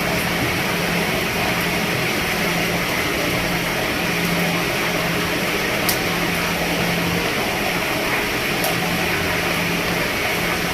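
Steady rain falling on a roof, an even hiss with two sharper ticks in the second half.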